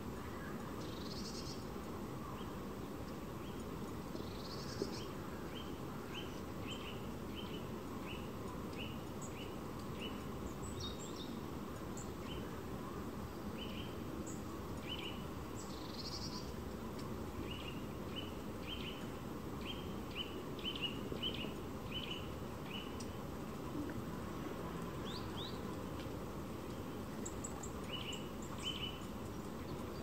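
Small songbirds calling: runs of short, quickly repeated chirps, about two a second, and a few higher, longer calls, over a steady low background rumble.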